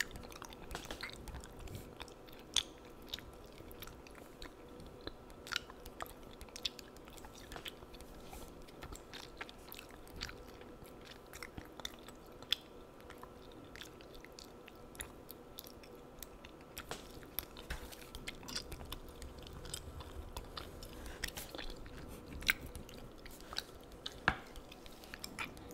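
Close-miked chewing gum: wet smacks and sharp clicks coming irregularly, over a faint steady hum.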